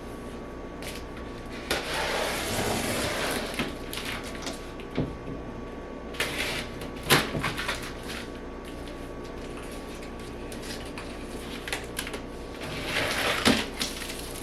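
Cardboard box and packing material being handled and pulled open: rustling and scraping with a few sharp knocks.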